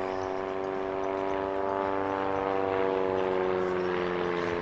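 Pitts S-1S aerobatic biplane's piston engine and propeller droning steadily at high power during a slow pass near stall speed, the pitch sinking slightly near the end as the plane goes by.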